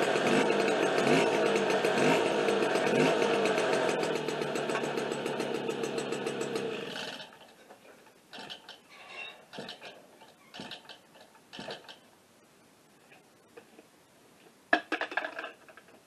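Motobécane AV89 moped's freshly rebuilt 50 cc two-stroke single running, with a few short rises in revs, then stopping suddenly about seven seconds in. Faint knocks and clicks follow.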